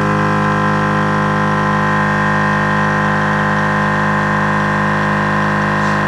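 Slime 12-volt portable air compressor running with a steady, unchanging drone, pumping up the air tank that feeds the tank's air cannon.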